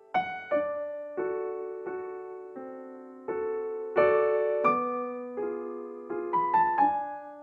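Slow, gentle solo piano background music: single notes and soft chords struck about every 0.7 s and left to ring and fade, with a quicker run of notes near the end.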